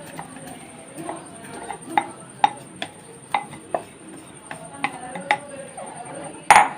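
A spoon knocking and scraping against a clay pot as crushed pearl millet is stirred into boiling water. It makes a run of irregular sharp clicks, then one louder knock near the end.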